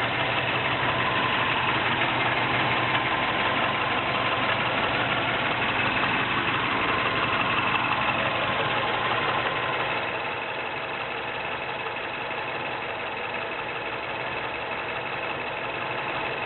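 Mazda 3 MPS's turbocharged 2.3-litre four-cylinder idling steadily, with a faint steady whine over it: the noise the owner finds strange. It gets a little quieter about ten seconds in.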